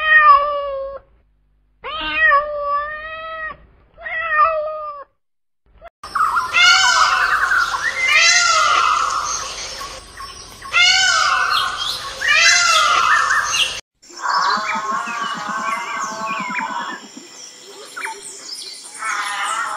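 A cat meowing three times, then a peacock (Indian peafowl) giving four loud, repeated calls, followed by another animal's lower, pulsing call near the end.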